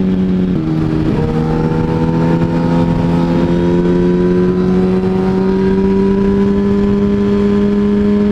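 2007 Yamaha R1's inline-four engine running under way, with wind rush. Its pitch drops about half a second in, as at a gear change, then climbs slowly as the bike accelerates.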